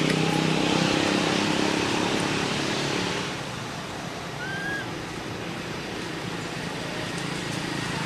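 A motor vehicle's engine running with a steady hum that fades about three seconds in, over a steady outdoor hiss. A short, high, rising chirp sounds once about four and a half seconds in.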